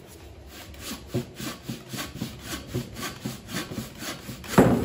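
Wooden frame saw crosscutting a thick block of wood by hand: quick, even rasping strokes, about four a second, with a louder knock near the end.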